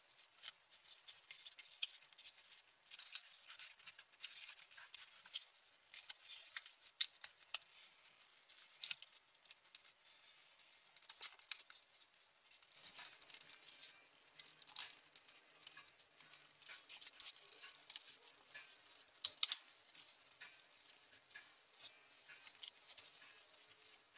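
Folded paper of a multi-unit origami model rustling and clicking in quick, irregular small ticks as fingers flex and turn it.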